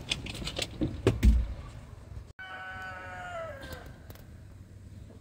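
A rooster crowing once: one drawn-out call that holds its pitch and then drops off at the end. Before it come a few sharp clicks and knocks of handling noise.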